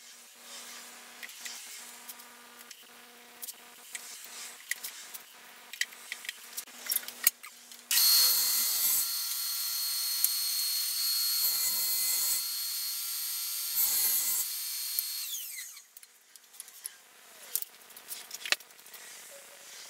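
Wood pieces knocking and clicking as they are handled. About eight seconds in, a table saw starts with a steady high whine and crosscuts plywood three times, each cut a short heavier burst as the blade goes through. It then spins down with a falling whine, followed by light knocks of wood pieces on the saw table.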